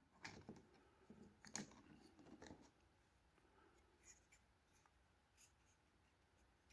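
Near silence, with a few faint clicks and scrapes of small parts being handled in the first couple of seconds.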